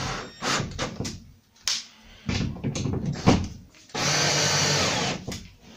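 Cordless drill-driver driving M5 machine screws into metal hollow wall anchors in short trigger bursts, with one longer steady run of over a second near the end as a screw is tightened.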